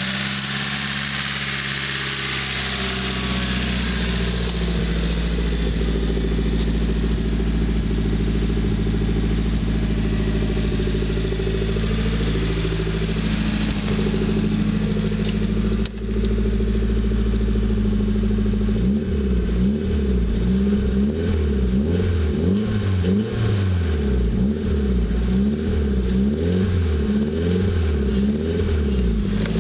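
Nissan SR20DET turbocharged 2.0-litre four-cylinder engine running, steady at first, then from about two-thirds in its speed swings up and down quickly and repeatedly. The owner suspects a tick in it is the lifters, after the valve cover hose came off during hard driving.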